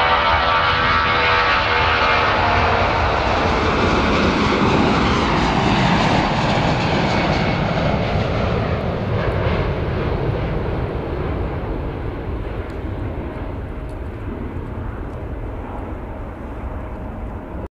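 Four-engine Airbus A340 jet airliner taking off at full thrust. The engine noise is loudest at first, with a whine that falls in pitch as the aircraft passes. It then fades steadily as the aircraft climbs away.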